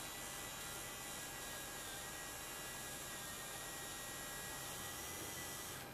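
Fun-Fly-Stick's small battery-driven motor running, a faint steady hum and hiss with a thin high whine, while the hand-held Van de Graaff generator drives the Z-spinner.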